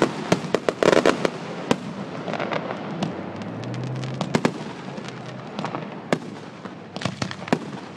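Aerial fireworks going off: a quick run of bangs and crackles in the first second, then single bangs scattered through the rest.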